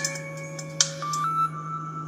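Sony Ericsson ringtone played through a Verykool S135 phone's loudspeaker: a synthesized melody of short electronic notes with sharp clicks, ending about a second and a half in on a held note that fades away. A steady low hum runs underneath.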